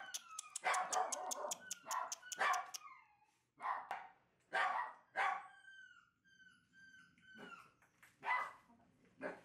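A Shiba Inu puppy barking repeatedly in short, high yaps, about ten in all at uneven gaps. Between some barks come short high whines that fall in pitch.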